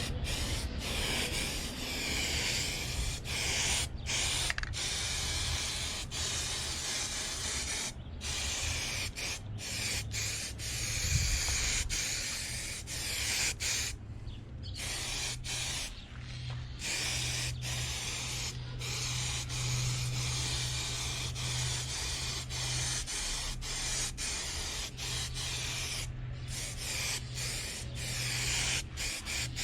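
Aerosol spray-paint can spraying a minibike frame: a steady hiss in long passes, broken by many short pauses as the nozzle is released and pressed again.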